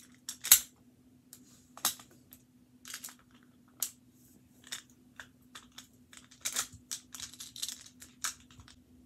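Plastic magnetic building tiles clicking and clacking as they are handled and snapped together, in irregular sharp clicks, the loudest about half a second in.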